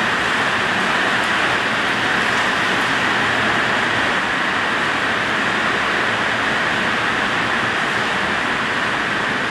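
Heavy rain falling, a steady, even rushing hiss.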